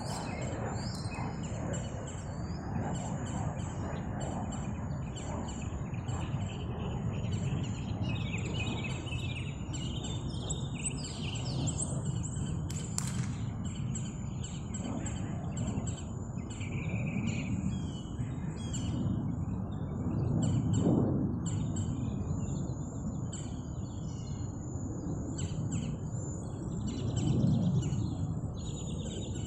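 Small birds chirping and singing on and off, over a steady low background rumble that swells twice, once past the middle and once near the end. A single sharp click sounds partway through.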